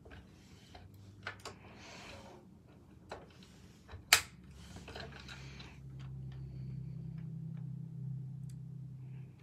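Small clicks and snaps from a scale model Chevrolet Corvette C8 as its doors and rear engine cover are worked by hand, with one sharp snap about four seconds in. A steady low hum comes in at about the halfway point and runs on almost to the end.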